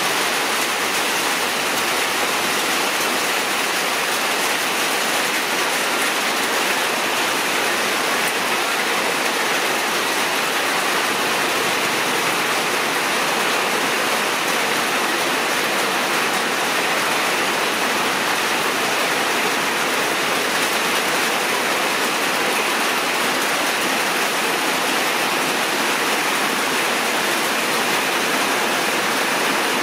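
Steady, even rushing noise, like running water or rain, unchanging throughout.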